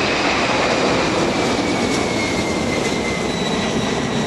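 McDonnell Douglas MD-11 freighter's three jet engines at takeoff power as it lifts off and climbs out, a loud roar with an engine whine sliding slowly down in pitch.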